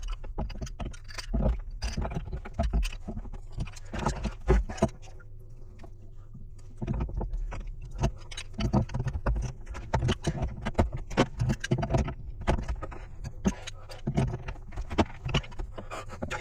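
Irregular metallic clinks and knocks of tools and fittings being handled, over a steady low machinery hum.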